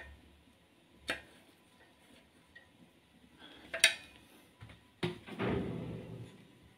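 Sharp metallic clinks of hand tools and engine parts being handled, three separate strikes with the middle one the loudest, followed by about a second of duller handling noise.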